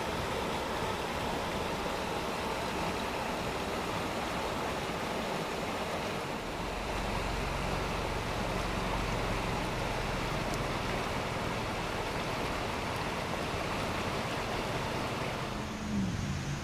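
Steady rushing noise with no clear pattern. A low steady hum joins it about six and a half seconds in. Near the end a short falling tone sounds and the noise changes character.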